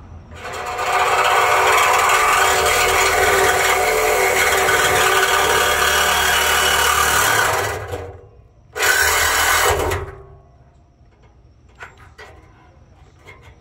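Power saw cutting through a car's exhaust pipe: a long continuous run of about seven and a half seconds, a brief stop, then a second run of about a second before it goes quiet as the cut is finished.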